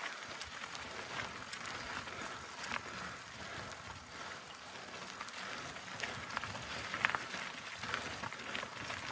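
Mountain bike tyres rolling over a dirt and gravel trail on a climb: a steady rushing noise with scattered small crunches and clicks at irregular intervals.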